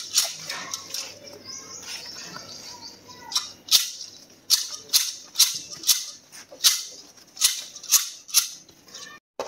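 Hand pruning shears snipping bougainvillea stems, a dozen or so sharp snips about two a second in the second half, with leaves and branches rustling before them.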